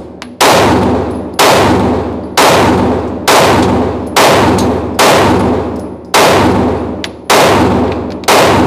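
Nine 9 mm pistol shots from a Glock 43X at a steady pace of about one a second. Each shot is followed by a long echo off the walls of the indoor range.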